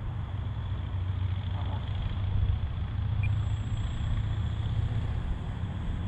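Gusty wind buffeting the microphone: a steady low rumble that swells and eases.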